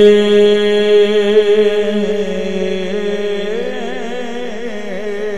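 A man's voice chanting a line of Punjabi verse, drawing one syllable out on a long held note that slowly grows softer, then breaks into a wavering, ornamented turn about three and a half seconds in.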